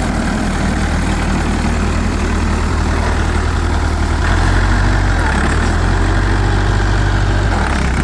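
Tractor engine idling steadily just after it has been started, getting a little louder from about four seconds in until near the end.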